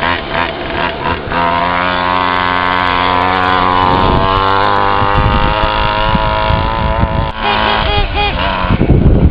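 Small pocket-quad engine of a large-scale R/C trophy truck running at high revs as the truck drives past at speed. The pitch dips and recovers around the middle, and the engine drops off about seven seconds in. The owner reckons the engine is not reaching its full revs and blames a poor exhaust.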